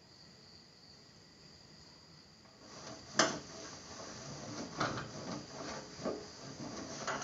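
A cloth wiping and rubbing over a stainless-steel gas stovetop, starting about two and a half seconds in. A sharp knock comes just after that, the loudest sound, followed by a few lighter knocks as the wiping goes on.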